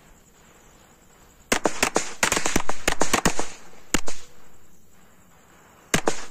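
Firecrackers going off: a rapid string of sharp bangs about a second and a half in, a single bang about a second later, and another near the end.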